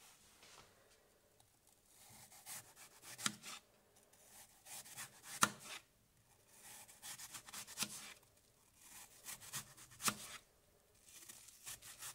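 Knife slicing a peeled apple into thin rings: a soft scraping as the blade passes through the flesh, then a sharp tap as it meets the plastic cutting board, about one slice every two seconds.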